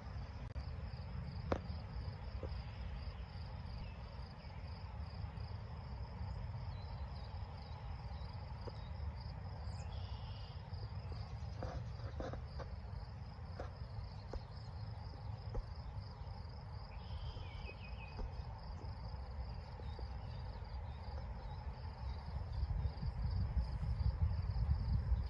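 Low, steady rumble of stationary Norfolk Southern GE Dash 9-40CW diesel locomotives idling, growing louder near the end. A steady, finely pulsing insect chorus, likely crickets, runs over it.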